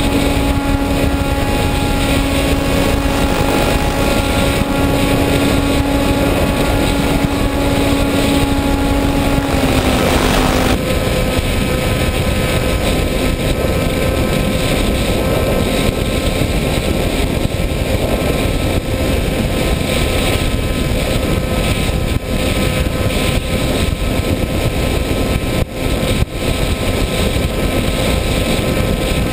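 Motor and propeller of an FPV model aircraft running steadily, heard through the onboard camera's microphone over a heavy rush of noise. The motor's hum drops slightly in pitch and gets weaker about ten seconds in, as if the throttle were eased, then holds steady.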